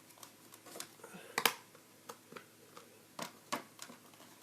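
Plastic toy playset parts being handled and fitted together: scattered light clicks and taps, the loudest about a second and a half in and a couple more near the three-second mark.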